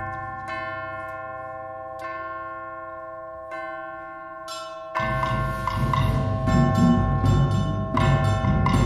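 A school concert band plays a held chord with single notes entering one after another. About five seconds in, the full band comes in loudly with repeated short accented notes. This is a bell-tone passage, in which players strike a note and hold it under the others.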